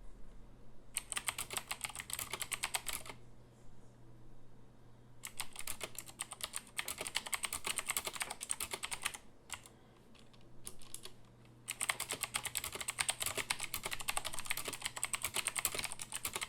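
Typing on a Corsair K95 RGB mechanical keyboard with Cherry MX Blue switches: rapid clicky keystrokes in three runs with short pauses between, starting about a second in, about five seconds in and near twelve seconds in.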